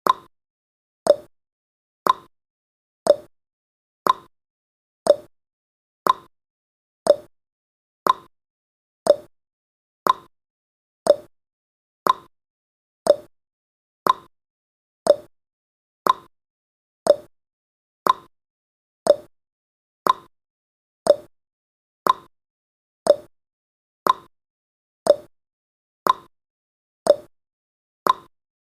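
Countdown timer's clock-style ticking sound effect: one short, sharp tick every second, the ticks alternating slightly higher and lower like a tick-tock.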